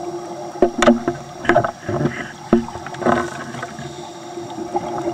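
Underwater recording: a scuba diver's exhaled bubbles gurgling past the camera in several bursts over the first three seconds, over a steady hum.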